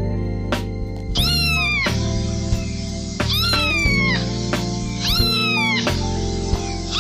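Domestic cat meowing three times, each meow about a second long, rising briefly and then falling in pitch, over background music with a steady beat.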